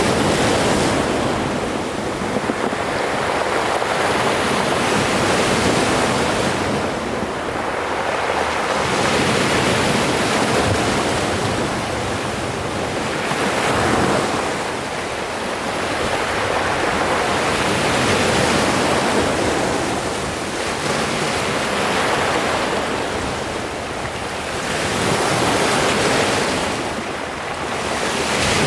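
Sea waves breaking and washing in, a continuous rush of surf that swells and eases every several seconds.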